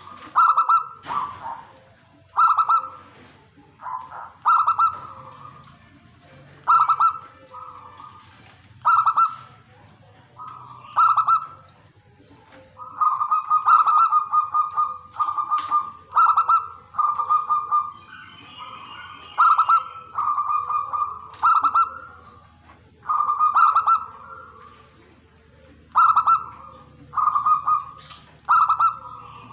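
Zebra dove (perkutut) cooing: short, repeated coo phrases every second or two, running together into a longer chain of notes about halfway through.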